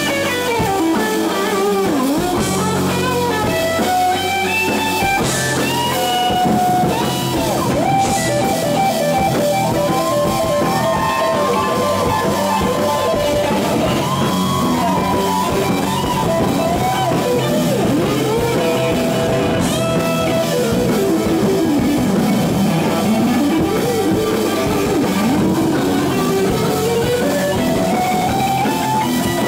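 Rock band playing live: electric guitars and drum kit, with a melody line that glides and bends up and down in pitch over the accompaniment.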